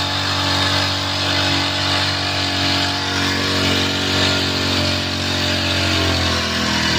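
Small four-stroke engine of a Kawasaki backpack power sprayer running steadily at speed, with the hiss of the pressurized spray jet. Its pitch drops slightly near the end as it slows.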